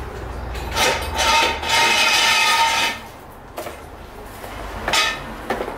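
Steel jack stand being dragged out from under a car across the garage floor: a harsh metal scrape lasting about two seconds, then two short metal clanks near the end.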